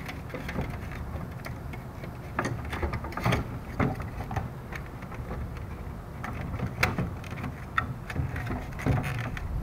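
Hard plastic dashboard bezel parts being handled and worked apart by hand: scattered, irregular small clicks and knocks over a low steady background hum.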